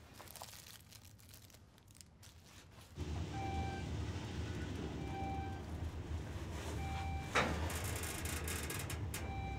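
Quiet room tone, then from about three seconds in an elevator car travels down with a steady low hum. A short electronic beep sounds four times, a couple of seconds apart, and there is a sharp clunk about three-quarters of the way through.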